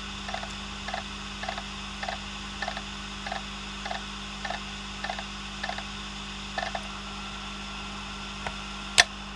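Opened Western Digital Green hard drive running in a docking station: a steady hum from the spinning platter, with the read/write heads ticking about twice a second as they hunt without ever reading, the sign of a failed drive. One sharp, louder click near the end.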